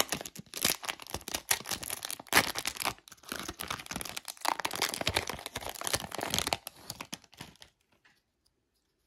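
Foil wrapper of a 1995 Topps Stadium Club baseball card pack being torn open and crinkled by hand, a rapid run of crackles and rustles that dies away about seven and a half seconds in.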